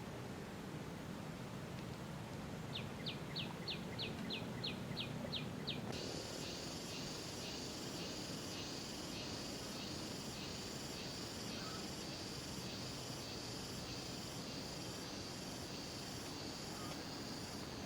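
A bird gives a quick series of about ten short notes, each falling in pitch. Then, about six seconds in, a steady high-pitched insect drone starts suddenly and keeps going with a slight pulsing.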